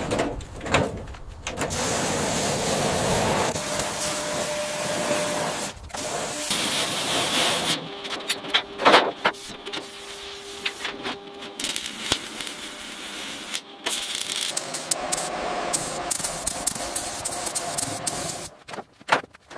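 A run of short, abruptly cut workshop noises from car body restoration: hissing and rubbing or scraping sounds with scattered knocks.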